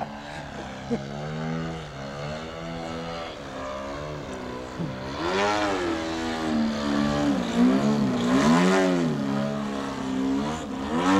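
Desert Aircraft DA-120 twin-cylinder two-stroke gas engine of a 35% scale Edge 540 RC aerobatic plane, fitted with canister mufflers and a 28x10 carbon propeller, running in flight. Its pitch swings up and down several times as the plane manoeuvres, louder in the second half.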